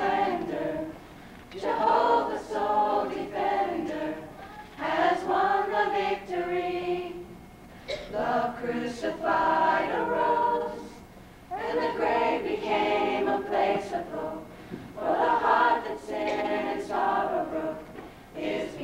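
A group of voices singing a worship song during a church service, in phrases of two to three seconds with short breaks between them.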